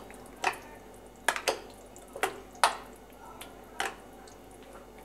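Metal spoon stirring batter in a cut-glass bowl, clinking against the glass about six times at uneven intervals, with soft scraping in between.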